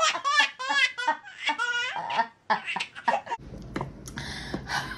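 A baby laughing in quick, high-pitched, repeated giggles for about three seconds, then cutting off abruptly.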